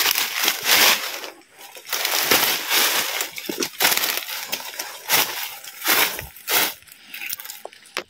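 Footsteps crunching and crackling through dry leaves and undergrowth, in irregular bursts with brush rustling against the body.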